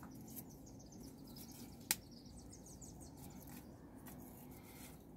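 Faint handling sounds of an orchid being potted in bark and wood pieces, with one sharp click about two seconds in.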